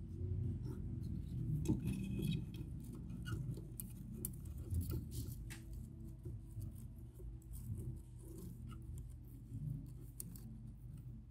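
Metal planting tweezers pushing a java fern into gravelly aquarium substrate: irregular small clicks, scrapes and rustles, over a steady low hum.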